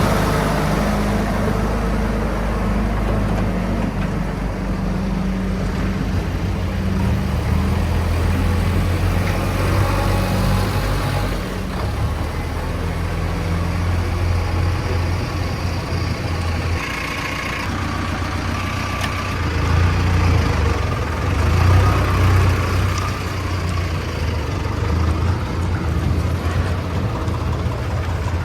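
JCB 3DX backhoe loader's diesel engine running under working load, its low drone swelling and easing as it works, louder about twenty seconds in.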